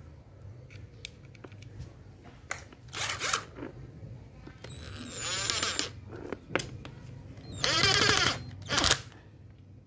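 Electric screwdriver whirring in about four short bursts, driving screws into the housing of a Makita angle grinder, its pitch sweeping up and down within each burst.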